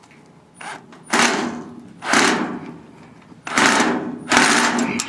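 Cordless power screwdriver run in a few short bursts, each about half a second, driving a self-tapping sheet metal screw into the cabinet's thin steel. The screw is not going in easily.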